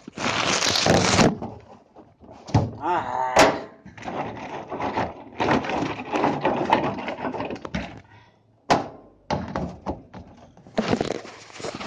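Plastic sacks and bin bags rustling and being bumped, in irregular loud bursts with several knocks, and a short wavering pitched sound about three seconds in.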